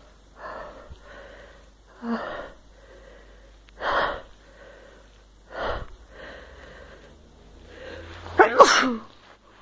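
A woman's sneeze brought on by tickling inside her nose with a cotton swab: several short, sharp breaths one to two seconds apart build up, then one loud voiced sneeze comes near the end.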